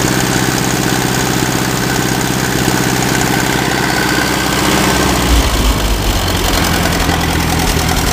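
International Harvester 350 Utility tractor's carbureted gasoline engine idling steadily, with no noticeable knock or unusual valve noise. Its note shifts about five seconds in.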